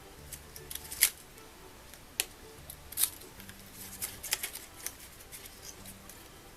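Scissors cutting a cardstock strip: a series of sharp, irregular snips with light paper handling, the loudest about a second in and again about three seconds in.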